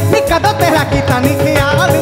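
Live Punjabi stage music: a male voice singing an ornamented melody through a microphone over a band with a steady drum beat.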